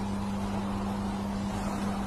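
A steady mechanical hum: one constant low tone over an even rumbling noise, unchanging throughout.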